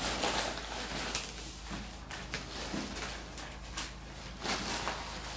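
Crinkling and rustling of gift wrap and plastic bags being handled and torn open, with scattered short taps and clicks over a steady low room hum.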